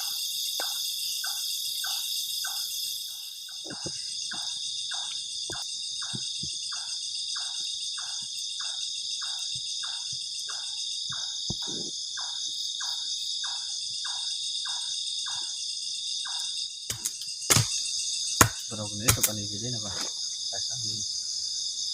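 Night chorus of crickets, a steady high shrill trill. A second caller pulses about three times a second through most of it. A few sharp knocks and some clatter come near the end.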